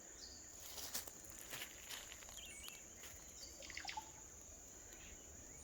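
Faint rural ambience: a steady high-pitched insect drone, a few short bird chirps, and several brief rustles, the loudest about a second in and near four seconds.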